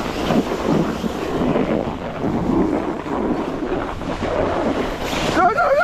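Snowboard sliding and scraping over packed, tracked snow, mixed with wind buffeting the microphone: a steady rough rumble.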